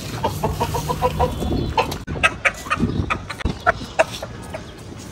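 Domestic chickens clucking: a quick run of short clucks for about the first two seconds, then scattered single clucks and clicks.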